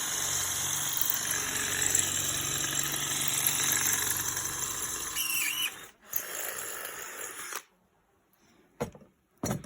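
Chainsaw running steadily. It cuts out about five and a half seconds in, runs briefly again and stops, followed by two short knocks near the end.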